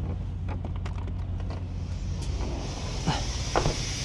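Truck diesel engine running with a steady low rumble while compressed air starts hissing out of the engine fan's air clutch, faint at first and growing louder toward the end: an air leak at the fan clutch, which the driver concludes lies in the clutch itself. Two short knocks come near the end.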